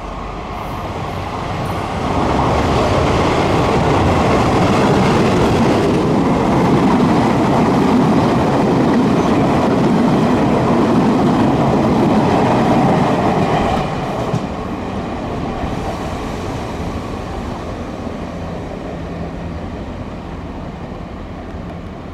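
Taiwan Railways E400-class electric locomotive (E402, built by GE) hauling a rake of passenger coaches through a station at speed without stopping; the train grows loud about two seconds in as it passes close, with the wheels running over the rails. It drops off sharply around fourteen seconds in and fades as the train moves away.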